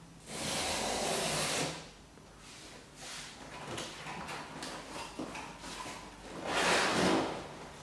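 Packing tape being ripped off a cardboard shipping box, with cardboard rustling and crackling as the flaps are worked open. There are two long rasping rips, about a second in and near the end.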